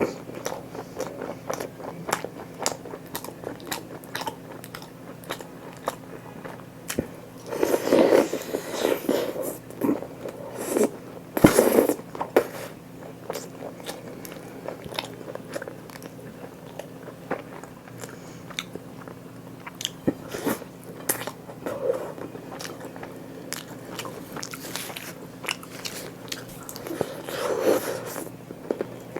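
Close-miked eating: continuous chewing with many small wet mouth clicks, and louder crunchy bites about eight seconds in, around twelve seconds, and near the end.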